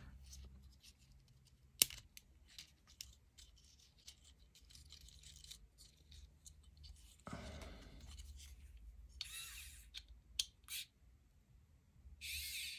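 Faint clicks, taps and rustling of small plastic RC car parts and tools being handled during disassembly, with one sharp click about two seconds in. Near the end a small electric screwdriver starts up with a high-pitched whir.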